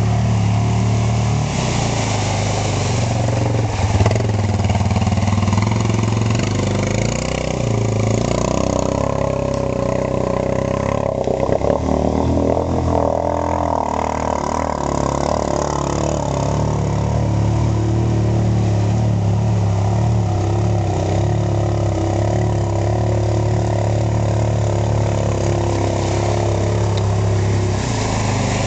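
ATV engine running through deep river water, its pitch rising and falling as the throttle is worked, with water splashing and churning around the wheels.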